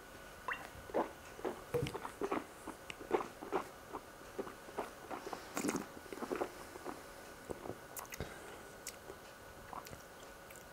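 Soft, wet mouth sounds of a wine taster working a sip of red wine around the mouth: a run of small clicks and smacks that thins out after about seven seconds.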